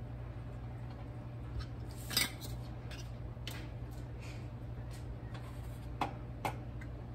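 Scattered light clinks and knocks of kitchen dishes and utensils over a steady low hum, the sharpest about two seconds in. Two more clinks near the end as a glass measuring cup is taken up from the stovetop.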